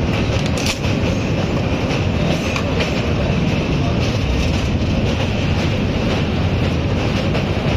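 Passenger train running along the track: a steady rumble and rush of wheels on rails, with one brief sharp click a little under a second in.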